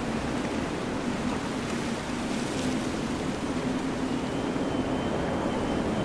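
Steady mountain wind rushing, a deep even noise with no gusting breaks. A faint thin high whistle holds for about two seconds near the end.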